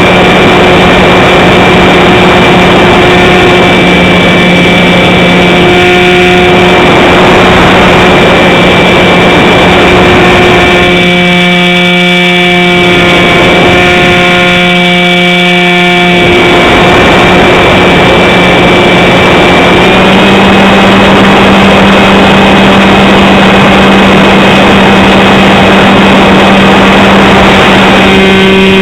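Model plane's motor and propeller running with a steady hum, recorded by a camera on the wing, over loud wind rush. The rush eases for a few seconds in the middle, and the motor's pitch steps up slightly about two-thirds of the way through.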